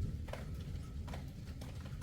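Rain in a thunderstorm: scattered heavy drops tapping irregularly on a hard surface, several a second, over a low continuous rumble.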